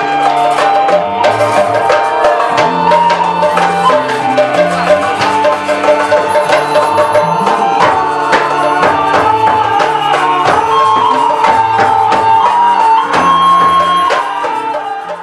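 Live ethnic-style band music: a vertical flute plays a sustained melody over electric bass guitar notes and hand-drum strokes. The music fades near the end.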